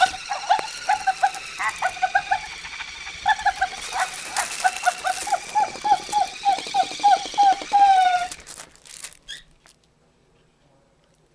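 Plush dog toy's squeaker squeaked over and over as a puppy chews it, about three short squeaks a second at the same pitch, the last one longer and falling, then the squeaking stops.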